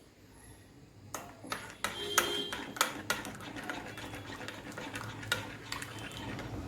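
A spoon stirring in a bowl of liquid kuzhambu, clinking and tapping against the bowl in a run of sharp clicks that starts about a second in, with a few brief ringing clinks.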